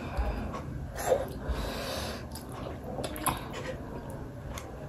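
Close eating sounds of a person eating momos: soft chewing and mouth noises with scattered small clicks and breaths.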